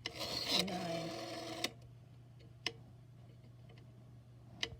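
Rotary telephone dial being turned and spinning back with a ticking whir for about a second and a half, followed by a couple of single clicks.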